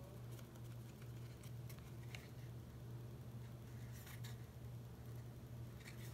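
Faint rustling and light tapping of cardstock being handled and pressed into place on a small paper box, with a few short clicks spread through, over a steady low hum.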